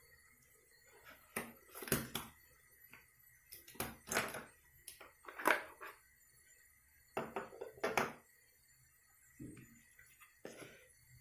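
Handling sounds from unboxing a smartphone: irregular knocks, taps and short rustles of the box, packaging and handset, over a faint steady high whine.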